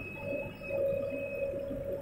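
JCB 3DX backhoe loader's diesel engine working under load, with a steady whine as the arm lifts a bucket of mud.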